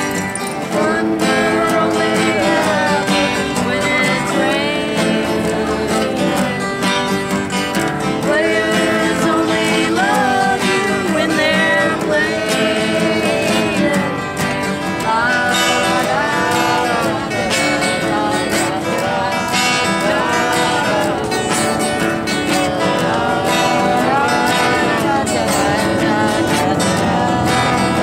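Live acoustic guitar strummed steadily, with a man's voice carrying a melody over it.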